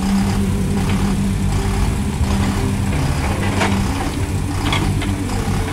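Backhoe loader's diesel engine running steadily while its boom and bucket work, with a couple of short knocks a little past the middle.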